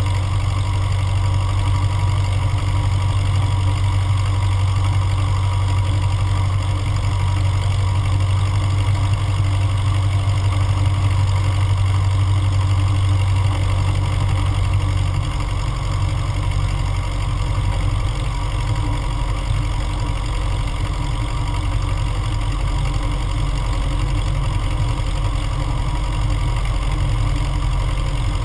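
The Cessna 150M's four-cylinder air-cooled Continental O-200 engine and propeller running at low taxi power, a steady low drone. About halfway through the drone weakens and turns rougher.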